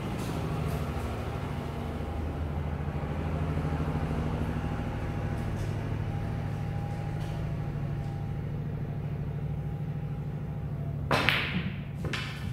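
Steady low hum, then near the end the sharp click of a cue striking the cue ball and the cue ball hitting a red snooker ball. A second, softer knock follows about a second later as a ball strikes the cushion.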